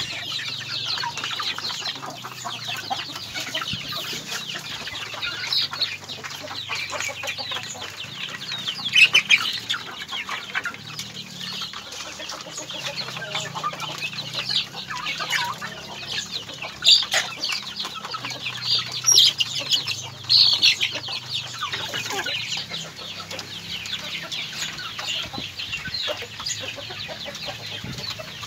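A flock of native chickens calling continuously, a dense run of many short high calls, with several louder calls in the middle.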